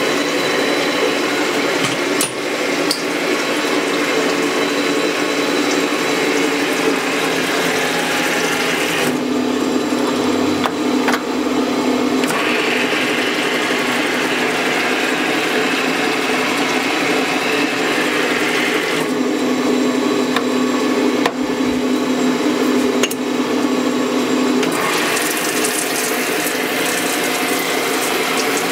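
Old turret lathe running, its motor and gearing whirring steadily, with a higher hissing noise over it that drops out twice for a few seconds and comes back.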